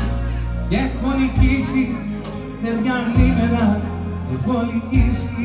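Live Greek laïko music: a bouzouki playing with keyboard accompaniment and deep bass notes struck every second or two, and a man's voice with it.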